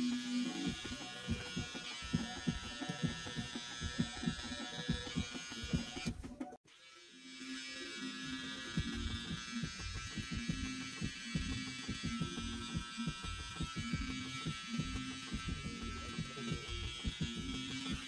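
Cordless BaBylissPRO hair trimmer running with a steady buzz as it cuts along the hairline, over many small irregular low knocks. The sound drops out briefly about six and a half seconds in and comes back.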